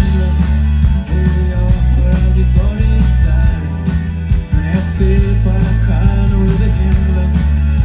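Live rock band playing over a PA, with electric guitar and electric bass guitar, heard from within the audience.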